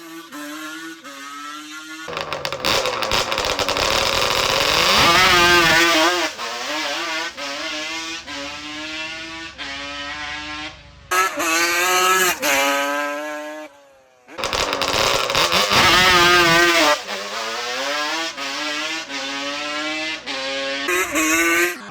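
Yamaha Banshee drag quad's 421 twin-cylinder two-stroke engine at full throttle on drag-strip passes, its pitch climbing as it revs out. The sound cuts off abruptly a few times between short clips.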